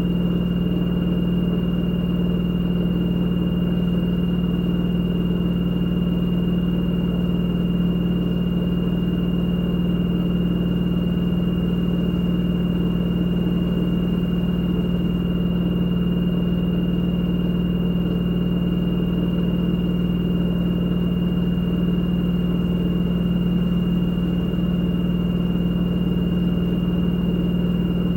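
LG direct-drive front-loading washing machine in its spin cycle, the drum spinning at a steady high speed: a steady low hum with a thin high-pitched whine above it.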